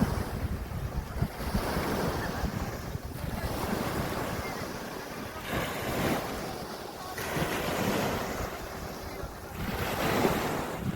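Sea of Azov waves washing onto the shore, the surf swelling and ebbing in repeated surges, with wind buffeting the microphone.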